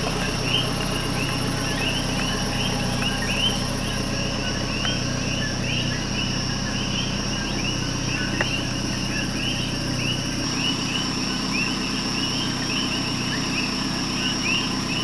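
Night chorus of coquí frogs: many short chirping calls repeating several times a second, overlapping one another, over a steady high insect drone.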